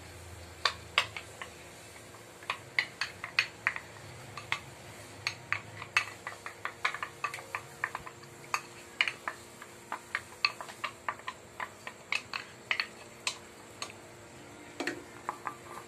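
Sharp, irregular clicks and light clinks at an enamel pot of boiling broth on a gas stove, two to four a second, thinning out near the end.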